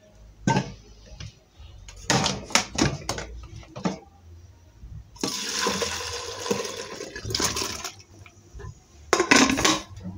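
Soup broth splashing as it is poured from one pot into an aluminium pot, a steady pour lasting about three seconds. Before it comes a run of metal clanks and knocks from the pots, and there is another short clatter near the end.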